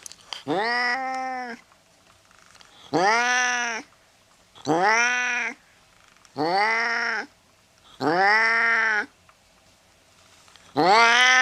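Domestic cat meowing repeatedly: six meows, one about every two seconds, each about a second long and rising then falling in pitch.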